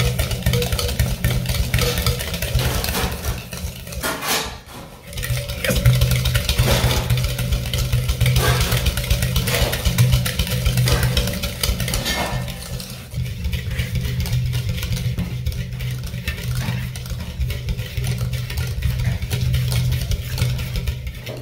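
Eggs and sugar being beaten in a mixing bowl: a steady low hum with rapid clatter, which dips briefly about four seconds in.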